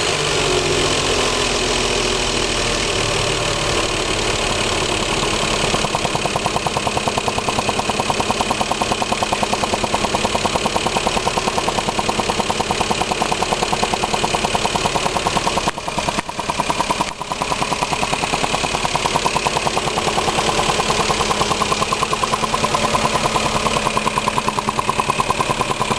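Lexus IS300 engine idling, its revs just settling back from a rev. About six seconds in, a fast, even pulsing sets in over the idle and keeps going: this is the odd idle noise, which goes away after fairly hard revving and comes back within a few seconds.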